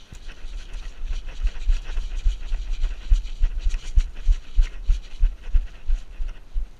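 Rhythmic deep thumps, about three a second, over steady rustling, louder in the middle of the stretch and fading near the end.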